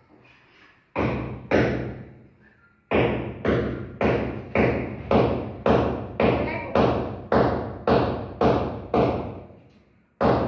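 Heavy drum beats in a music track, about two a second, each hit ringing out over a low hum.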